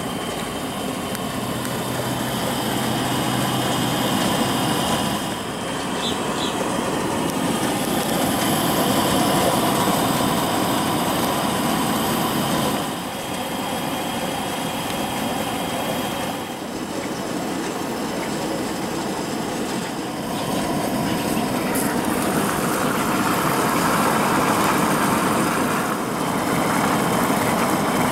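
Coleman InstaStart propane grill stove's burner running under a lidded pot of steaming water: a steady rushing hiss that dips briefly a few times.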